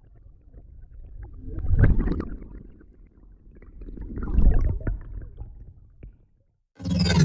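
Designed whoosh sound effect: two deep, rumbling swells that each rise and fade away, the louder peaks about two and four and a half seconds in. Near the end a sharp start of the next synthetic whoosh, with many falling tones.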